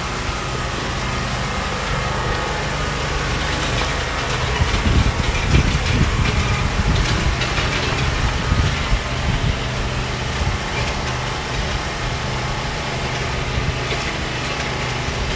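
Engine of machinery digging trenches for irrigation pipe, running steadily, with a louder, uneven stretch from about four and a half to nine seconds in as it works.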